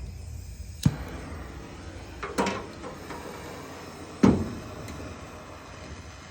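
Three sharp knocks or clatters, about a second, two and a half seconds and four seconds in, the last the loudest. Under them is a low steady rumble that fades after the first knock.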